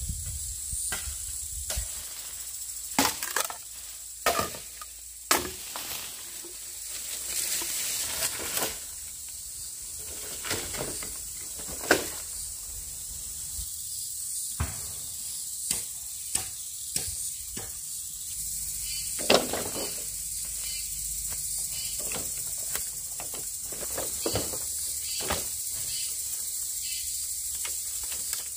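Irregular sharp knocks and clicks, about a dozen spread over the stretch, over a steady high hiss.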